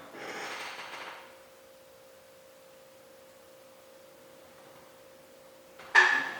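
A steady, pure hum held at one pitch throughout, with a faint rustle in the first second and a sharp knock about six seconds in.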